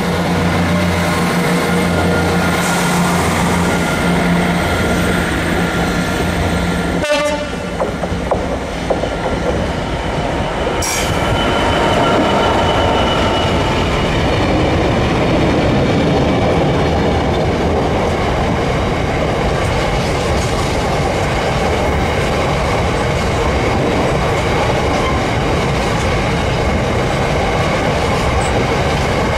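Freightliner Class 66 diesel locomotive with its EMD two-stroke engine running steadily as it passes. About 7 seconds in, the engine gives way to a long rake of empty box wagons rolling by, with a steady rumble of wheels on rail and some ringing wheel squeal from about 11 seconds in.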